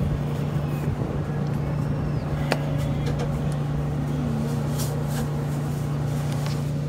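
Steady low hum of a taco truck's onboard machinery running, with one sharp click about two and a half seconds in.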